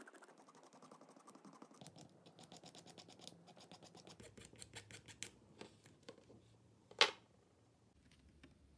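Fast run of small scratches and clicks as a thin tool scrapes the edge of grip tape on a fingerboard deck, with one sharper click about seven seconds in.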